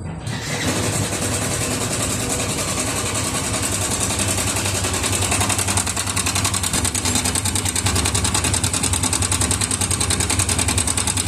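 Yamaha FZS V2 single-cylinder engine idling steadily with a fast, even metallic rattle from the top end: timing chain noise, which the mechanic puts down to a loose timing chain or a worn tensioner push rod.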